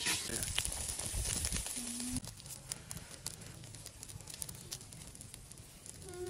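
Hands kneading and squeezing raw chicken intestines with herbs and chillies in a metal basin: wet squishing and rustling with sharp clicks, for about the first two seconds.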